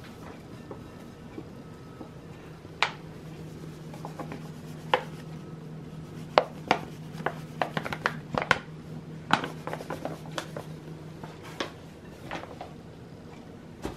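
Paper flour bag crinkling and crackling as it is tipped and handled, flour pouring from it into a glass bowl; the crackles come thickest in the middle.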